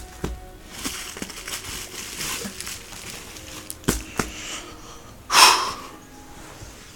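Packaged art books being handled: light rustling and two sharp knocks about four seconds in, then a loud breathy burst of about half a second near the end.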